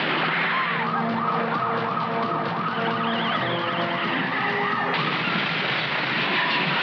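Film action soundtrack: a siren warbling up and down about three times a second over dense vehicle noise. About five seconds in, it gives way to the steady rumble of a heavy vehicle on the move.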